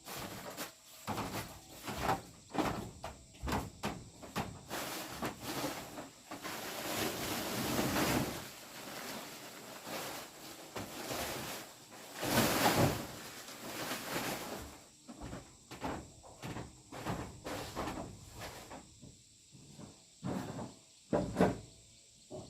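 Irregular knocks and scrapes of objects being handled, with a longer rushing, scraping noise twice around the middle.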